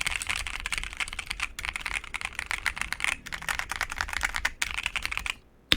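Fast typing on an ASUS ROG Azoth mechanical keyboard with ROG NX Red linear switches on a PC plate, foam- and PET-film-modded: a dense run of quick key clicks. The typing stops about five seconds in, and one sharp, louder click follows near the end.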